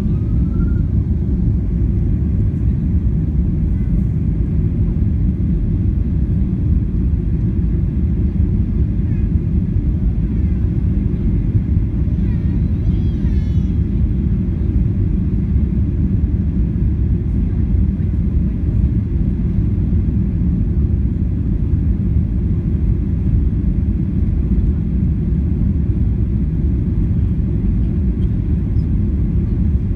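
Steady low cabin rumble of a Skymark Boeing 737-800 airliner descending on approach to land, engine and airflow noise heard from inside the cabin.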